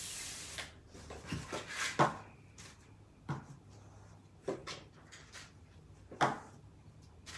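Cardboard box flaps opened with a brief rustle, then instant soup cups lifted out and set down on a wooden table with several light knocks, the loudest about two seconds in and again near the end.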